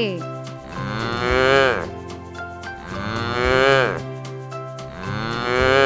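Cow mooing three times, about two seconds apart, each long call rising then falling in pitch.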